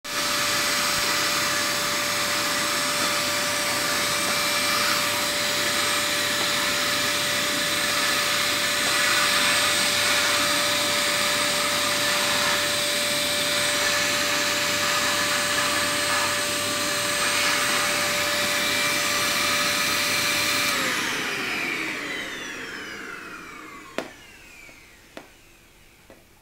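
Vacuum cleaner running steadily with a constant whine, then switched off about 21 seconds in: the motor spins down, its whine falling in pitch as it fades. Three sharp clicks near the end.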